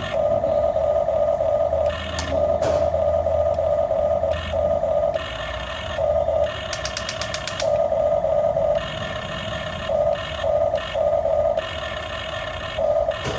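Small electric gear motors of a remote-control toy backhoe loader whining in stop-start bursts as its arm and bucket are worked, with a brief run of rapid ticks about seven seconds in.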